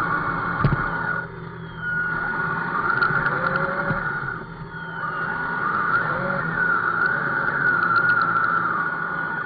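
Radio-controlled scale truck running, a steady high motor-and-gearbox whine that stops briefly twice and picks up again.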